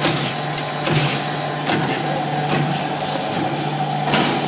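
Automotive fastener production machine running with a steady hum, and a sharp knock from its stroke roughly once a second.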